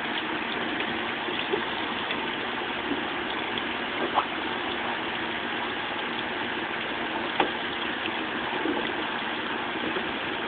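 Steady mechanical hum mixed with the hiss of a splash pad's small water jets spraying. A few faint knocks, the clearest about four seconds in and again about seven and a half seconds in.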